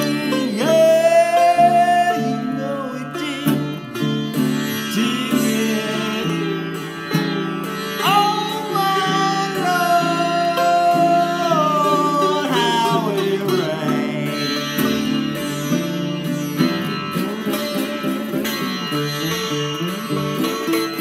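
Sitar and baritone ukulele playing together, with a man singing over them. Long sliding notes come in about a second in and again from about eight seconds, over steady strummed chords.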